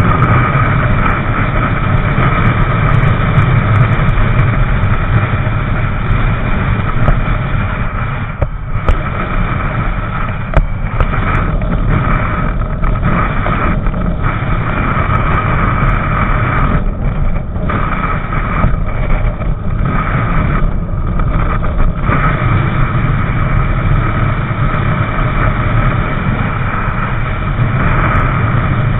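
Motorcycle running steadily at freeway speed, its engine drone mixed with heavy wind rush on the rider's microphone; the noise dips briefly several times in the middle.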